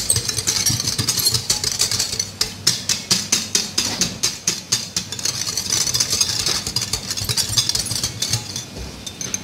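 Wire whisk beating a milk, egg and sugar mixture in a glass bowl to dissolve the sugar. The tines tick rapidly against the glass, several times a second, with a wet swishing.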